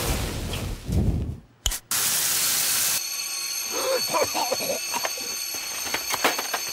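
Loud sizzling hiss of water hitting a hot pan as gyoza are steamed, breaking off for a moment about a second and a half in and then returning. From about three seconds in, a high, steady ringing alarm sounds over the hiss, with voices crying out.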